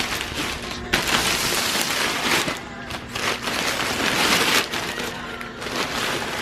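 Fabric motorcycle cover rustling and swishing as it is dragged off the bike, in uneven surges of a second or two each. Faint music plays underneath.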